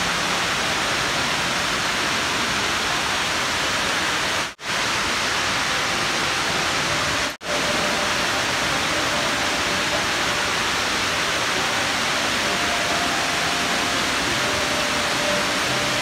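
Indoor waterfall pouring down a tall wall into a pool: a steady rushing of falling water. The sound cuts out briefly twice, about four and a half and seven and a half seconds in.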